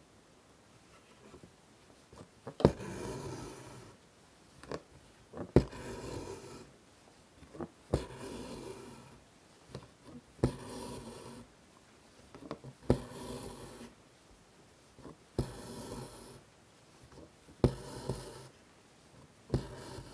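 An embroidery needle popping through taut hooped fabric, then white embroidery thread drawn through with a soft rasp, about every two and a half seconds, eight stitches in all.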